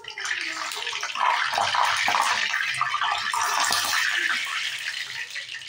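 Battered banana fritters sizzling and crackling in hot frying oil, louder from about a second in.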